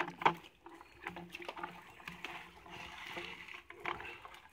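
Wet, mud-laden cast net being handled and dragged over the mud, with scattered squelching and splashy sounds and a sharp knock near the start.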